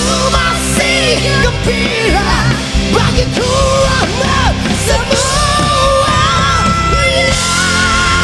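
Rock ballad played live by a band with singing: wordless vocal runs sliding up and down, then a long high note held from a little past halfway, wavering with vibrato near the end.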